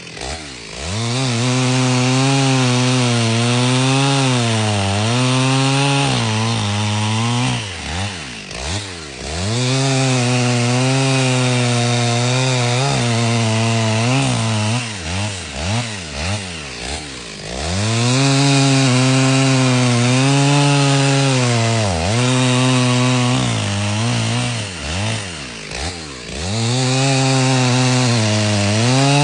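Gasoline chainsaw cutting through oak logs. The engine runs at high revs, its pitch sagging and recovering as the chain bites into the wood. Several times it eases off to a lower throttle between cuts.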